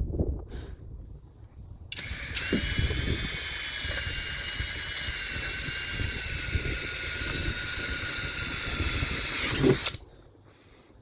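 Power drill running steadily for about eight seconds, a high whine, drilling a rivet hole through the chequer plate. It starts about two seconds in and stops suddenly with a knock near the end.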